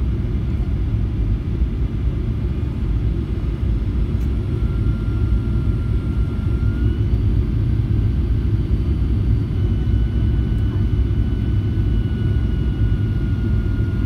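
Boeing 737-800 cabin noise on final approach: a steady low roar of the CFM56-7B turbofans and rushing air, heard from a seat ahead of the wing. A faint, steady high engine whine comes in about five seconds in and holds.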